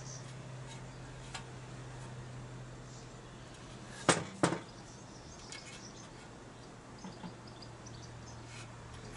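Two sharp knocks about half a second apart, around four seconds in, from handling a steel rocker cover on a workbench, over a steady low hum and a few faint ticks.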